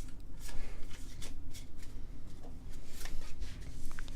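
Crinkling and rustling of a Pokémon booster pack's foil wrapper being opened and the cards handled: a quick, irregular string of small crackles.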